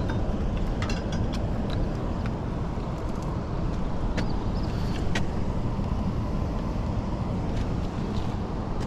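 Steady low outdoor rumble, with a few light clicks and ticks scattered through it as fishing tackle is handled while a rod is set up.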